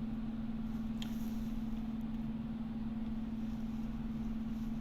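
A steady low hum holding one pitch, with a faint click about a second in.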